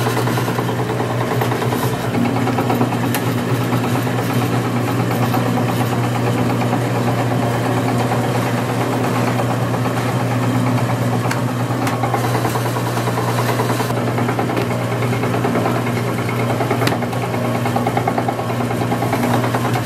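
Electric noodle-dough sheeting machine running, its motor and steel rollers giving a steady low hum while dough is fed through, with a few faint clicks.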